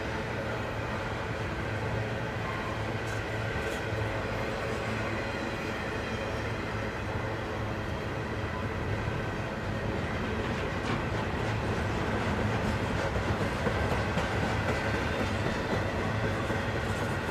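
Double-stack container well cars of a long freight train rolling past: steady noise of steel wheels running on the rail, with faint clicks, getting a little louder in the second half.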